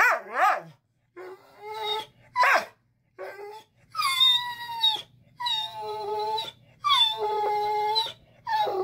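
A dog whining and howling. A run of short cries comes first, then four longer drawn-out calls of about a second each that bend down in pitch, sounding like a horse.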